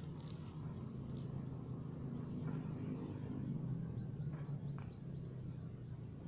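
Outdoor background noise: a steady low rumble with faint high chirps scattered over it, and a quick run of small, evenly spaced ticking chirps in the middle.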